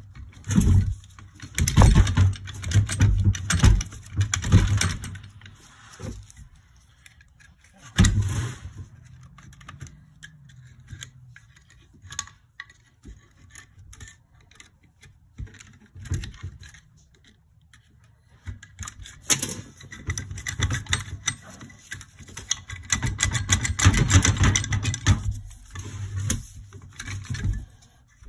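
Metal hand tools working on fasteners and parts of a Yamaha YZ250F engine: rapid metallic clicking and clattering in the first few seconds and again through much of the last third, with a sharp knock about eight seconds in and scattered clicks between.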